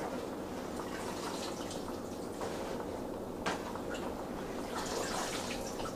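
Water dripping and splashing as washed kale leaves are lifted out of their rinse water, with a single light knock about three and a half seconds in.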